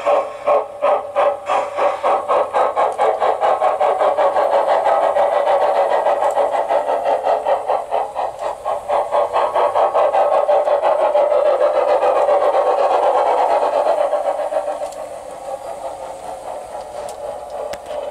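Digital sound decoder (Zimo MX699 with a Mathias Henning sound project) in a G-scale Saxon IK steam locomotive model, giving steam exhaust chuffs as the locomotive runs. The chuffs quicken from about two a second to a rapid stream within the first few seconds, then fall in level about fifteen seconds in.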